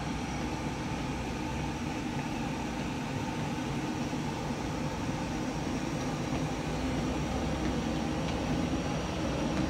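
Steady low background hum and hiss, even throughout, with no distinct footsteps or knocks standing out.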